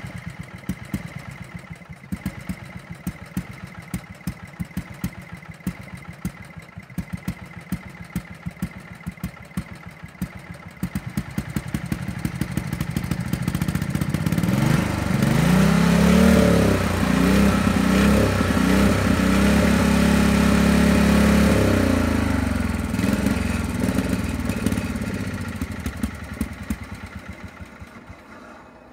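Small single garden-tractor engine running at a low, pulsing idle, then revving up for several seconds about halfway through, with the pitch shifting, before slowing and fading away near the end.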